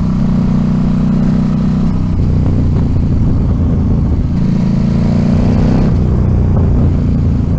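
Sport motorcycle's V-twin engine running at cruising speed under the rider, with road and wind noise. The engine note holds steady, wavering about two seconds in and again near six seconds.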